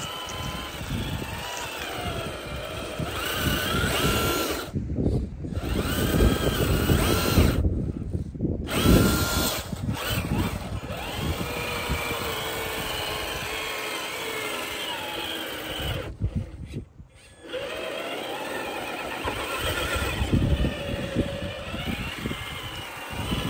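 Traxxas TRX-4 High Trail RC crawler's electric motor and geared drivetrain whining, the pitch rising and falling with the throttle, over the rough sound of the tires working on dirt and rock. The sound breaks off briefly three times.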